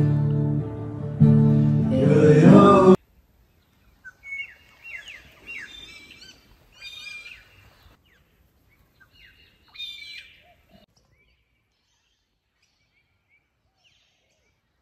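Worship music with singing and acoustic guitar that cuts off abruptly about three seconds in. Bird calls follow: a series of short chirps with quick pitch sweeps, quieter and spaced out, fading away near the end.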